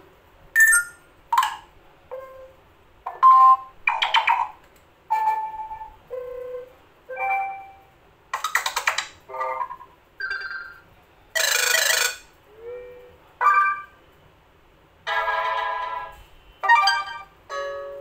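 Stock Android notification tones previewed one after another through the Nokia G21 phone's speaker: well over a dozen short chimes, beeps and jingles, each under a second, with short gaps between them and a hissy burst about halfway through.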